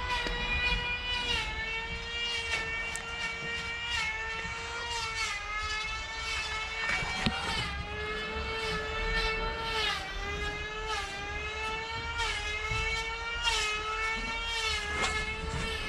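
Handheld electric power tool running with a high whine whose pitch sags and recovers every second or so, as when it is pressed into the work and eased off.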